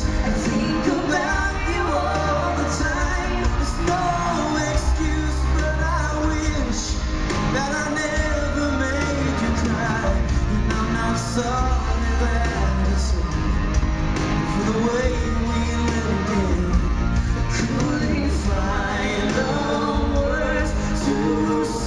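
A man and a woman singing a country-pop duet live with a full band, heard from the audience of an arena with the hall's reverberation.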